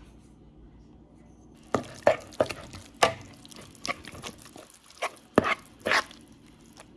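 A utensil stirring a wet shredded-zucchini batter in a bowl, with irregular clinks and scrapes against the bowl starting about two seconds in.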